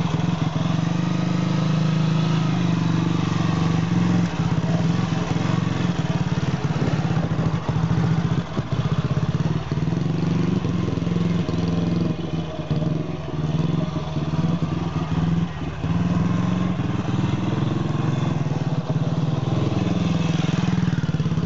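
Single-cylinder engine of a prototype MV Agusta 175 with infinitely variable hydraulic drive, running under way as the bike is ridden off and back. Its revs rise and fall gently.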